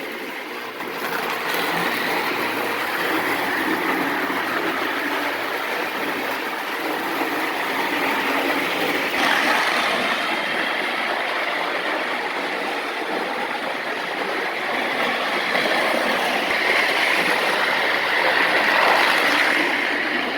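Prewar American Flyer toy electric locomotive running quickly on its track: a steady whirr of its electric motor and the rattle of wheels on the rails, slowly swelling and easing in loudness.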